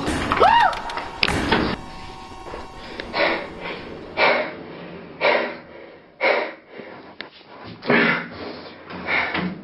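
A brief high squeal near the start over loud rustling movement, then a person panting heavily, about one breath a second, as if out of breath from running.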